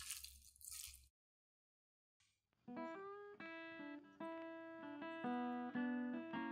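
Tongs tossing sauced glass noodles in a glass bowl for about a second, then a short silence, then plucked guitar music starts and plays on as the louder sound.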